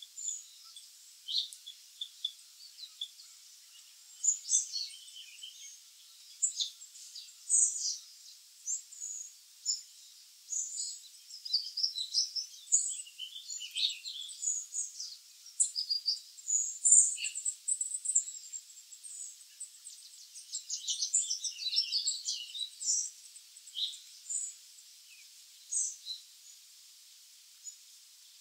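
Black-capped chickadees calling: a busy stream of short, high chirps and twittering notes, several every second.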